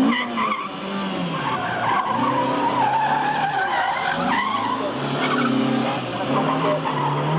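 Honda CR-X gymkhana car driven hard around pylons: the engine revs, its pitch stepping up and down, while the tyres squeal through a tight turn for a few seconds starting about a second and a half in. The engine climbs in pitch again near the end.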